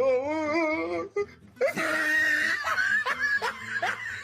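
A person's voice laughing and shrieking: a wavering, high cry about a second long, then after a short pause a longer, louder burst.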